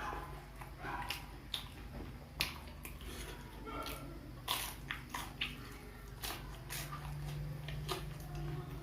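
Close-up eating sounds: irregular crunchy bites and wet chewing of Indonesian fried snacks (gorengan).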